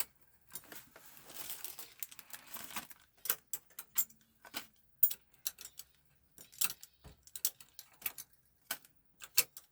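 Small metal screws and parts clicking and clinking as they are handled and set down, in irregular taps, with a softer rubbing sound from about one to three seconds in.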